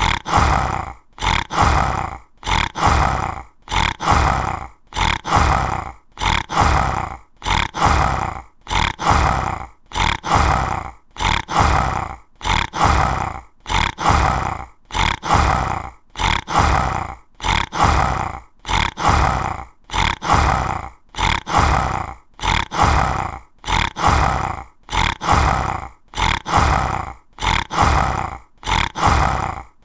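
Tiger roaring over and over in a loop: short roars about one a second, with brief gaps between them.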